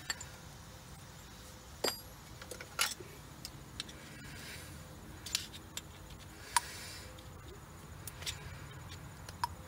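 Scattered light metallic clinks and taps, about eight spread irregularly through the few seconds, as a 35 mm socket stuck fast on the wheel hub's axle nut is worked at to free it.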